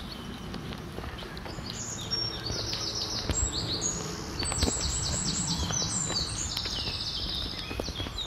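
A songbird singing: several quick phrases of rapidly repeated high notes, starting about two seconds in and fading near the end, over scattered footsteps on a dirt path and a low rumble.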